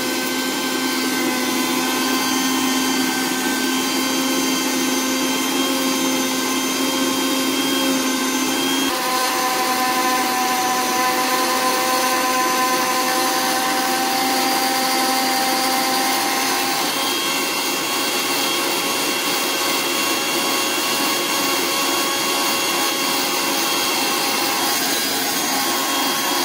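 Bajaj Rex 500 mixer grinder running, its stainless-steel jar grinding dried tulsi (holy basil) leaves to powder: a steady motor whine over a noisy grinding hiss. The tone shifts about a third of the way in and again past halfway, and the motor cuts off suddenly at the end.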